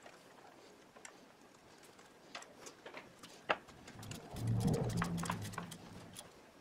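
Faint metal clicks of a socket and wrench on a spark plug, with one sharper click about three and a half seconds in, then a low groan from the mechanic for about two seconds as he strains on the wrench.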